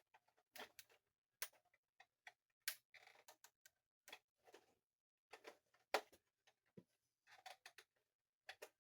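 Faint, irregular clicks and taps of hard plastic toy pieces being handled and set down, a few sharper knocks among them.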